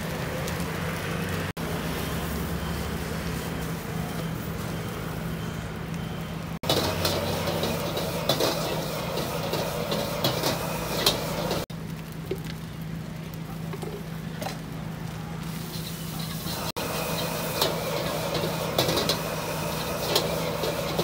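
Stir-frying in a wok over a gas wok burner: a metal ladle scrapes and knocks against the wok while the food sizzles, over the steady noise of the burner and a steady low hum.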